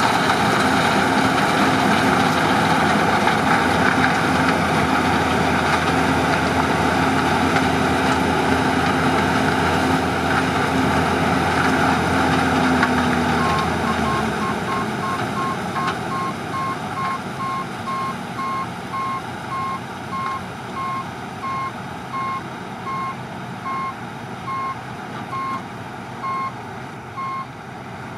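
New Holland CX 7.90 combine running loud and steady, with a steady hum, until about halfway through, when the deep drone drops away and the machine goes quieter. A reversing alarm then beeps at about one and a half beeps a second over the running engine: the machine is backing up.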